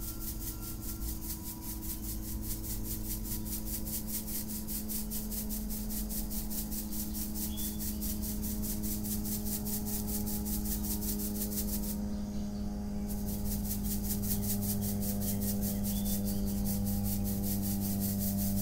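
Soil being rubbed through a hand-held mesh sieve, a fast, even rasping that stops briefly about two-thirds of the way in, over a steady low hum that grows louder towards the end.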